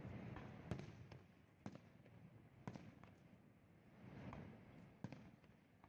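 Distant fireworks shells bursting: faint, sharp pops at irregular intervals, about four clear ones, the loudest a little under a second in, over low background noise.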